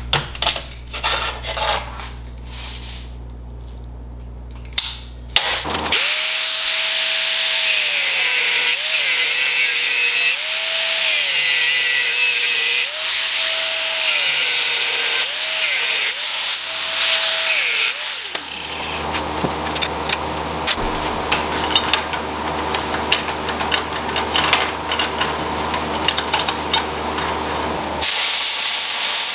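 Electric power tool working on steel. Its motor whine sags in pitch and recovers several times as it is pressed into the work, under a harsh hiss. From about two-thirds of the way in the sound turns rougher and crackly, full of small clicks, and a short loud burst of hiss comes near the end.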